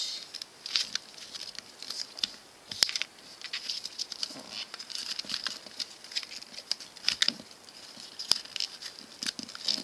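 Paper being folded and creased by hand against a wooden tabletop: irregular rustling and scraping, with a couple of sharp clicks, about three seconds in and again near the end.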